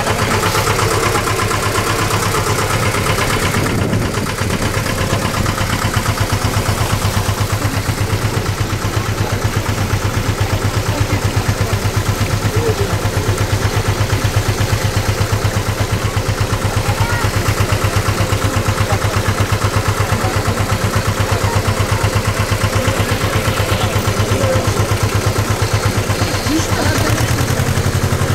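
Tour boat's engine running steadily, heard from on board, with a fast, even pulse.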